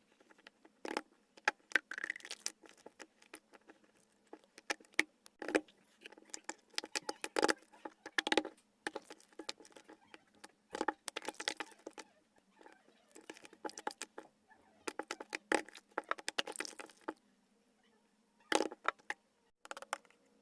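Slime being squeezed and poked by hand: a quick, irregular run of sticky clicks and pops with short pauses, played back at four times normal speed.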